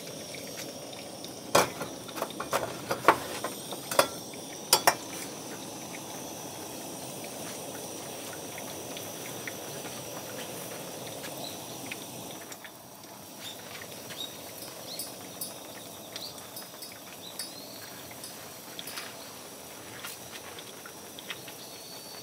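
Several sharp metallic clinks in the first five seconds. Then a steady faint hiss with scattered small ticks as hot water seeps through coffee grounds in a stainless-steel phin filter and drips into a glass cup.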